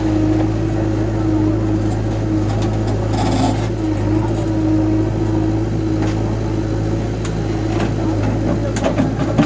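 Diesel engine of a JCB backhoe loader running under load as its hydraulic arm swings the bucket, a steady low drone with a wavering whine over it. Near the end there is a short clatter as the bucket dumps soil and clods into the tractor trolley.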